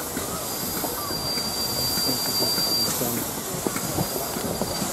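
Stanier Black Five 4-6-0 steam locomotive standing at a platform, steam hissing steadily, with a thin high-pitched whine that comes and goes.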